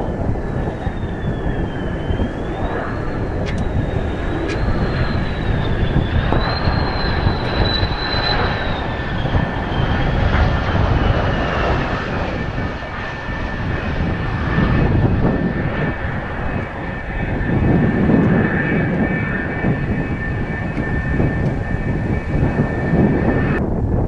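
Mitsubishi F-2 fighter's single turbofan jet engine on landing approach and touchdown: a continuous rumbling roar with a high whine that wavers, then falls away about halfway through as the jet passes. Wind buffets the microphone.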